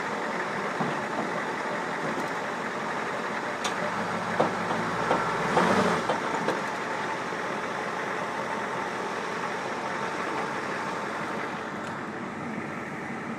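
Ford 7.3L Powerstroke V8 turbo diesel running steadily at idle, with a short cluster of knocks and clatter near the middle.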